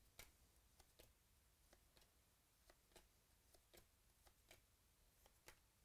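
Faint, irregular clicks and flicks of cardboard trading cards being slid off a hand-held stack one by one, a dozen or so soft ticks in near silence.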